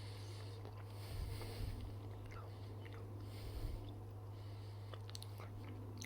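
Faint chewing and mouth sounds of someone eating a bite of ice cream, in two short soft spells, over a steady low hum.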